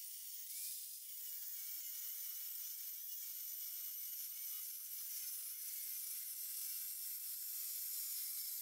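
Angle grinder with a diamond cut-off wheel cutting into a steel bar, heard faintly as a steady high hiss with no low rumble.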